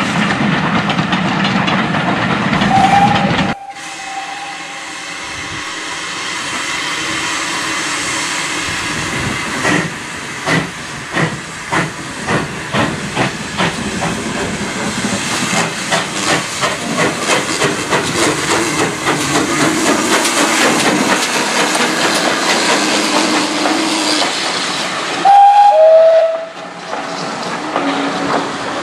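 Steam tank locomotive pulling away with a train. Its exhaust beats come faster as it gathers speed, over a steady hiss of steam, and about 25 s in it gives a short, loud whistle that steps down in pitch. It opens with a train running past, which cuts off suddenly about 3.5 s in.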